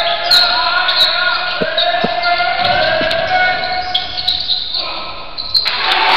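A basketball bouncing on a hardwood gym floor, a couple of clear bounces about one and a half and two seconds in, amid shouting voices echoing in a large gym.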